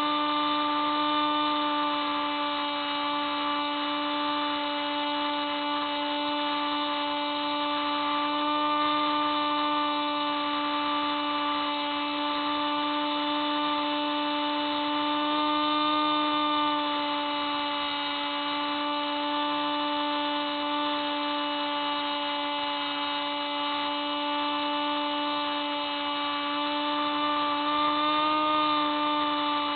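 Electric motor and propeller of a Hubsan Spyhawk RC plane whining steadily in flight, heard through its onboard camera. The pitch rises briefly twice, about halfway through and near the end.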